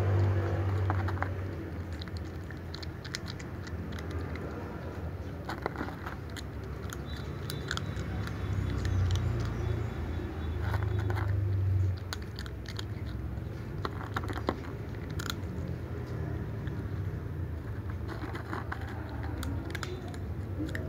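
Ginger cat crunching and chewing dry kibble, a quick irregular run of small crisp cracks. A low hum underneath swells near the start and again around the middle, then drops off suddenly.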